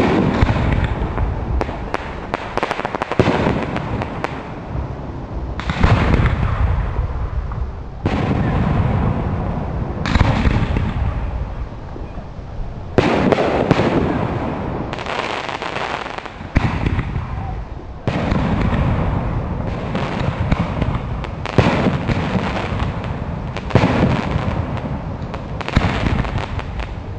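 Aerial firework shells bursting one after another, a sudden boom every one to two seconds, each trailing off with crackling and a long fading rumble.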